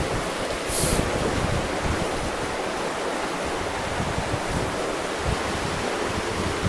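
Steady rushing noise of flowing river water, mixed with wind buffeting the microphone, with a short sharper hiss about a second in.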